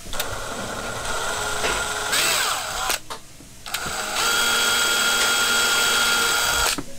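Cordless drill with a thin twist bit drilling a small hole into the edge of a freezer door. It runs in two goes: about three seconds with the pitch sweeping near the end, a brief stop, then about three seconds of steady whine that cuts off suddenly just before the end.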